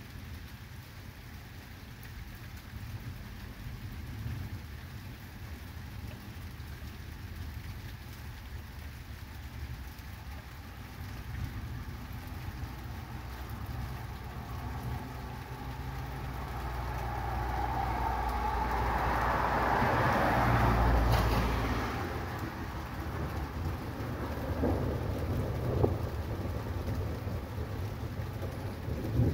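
Thunderstorm with rain falling steadily and thunder rumbling low. A louder swell of noise builds and fades about two-thirds of the way through.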